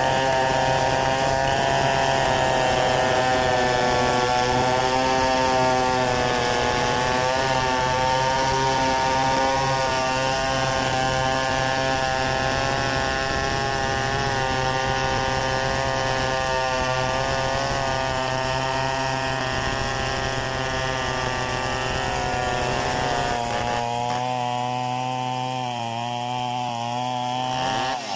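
Stihl 070 two-stroke chainsaw running at high speed under load, cutting through mahogany wood. The engine note holds steady with slight wavers in pitch, and its low end thins out near the end.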